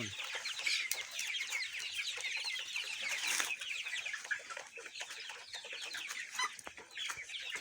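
A large flock of 30-day-old Color Bird chickens peeping and clucking without a break: many short, high, falling calls overlap into a continuous chatter.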